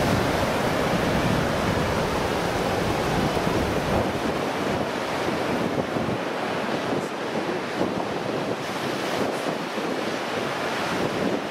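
Surf washing on a sandy beach, with wind buffeting the microphone; the low wind rumble eases after about four seconds.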